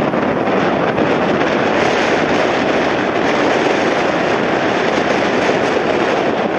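Jet airliner engines running loud and steady, a dense rushing rumble with no clear pitch.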